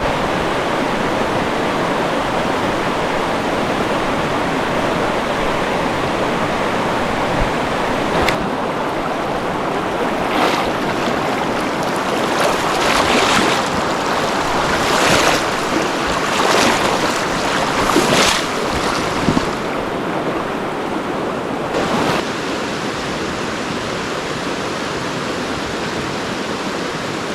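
Rushing water of a mountain trout stream, a loud steady rush, with several brief louder surges between about eight and eighteen seconds in.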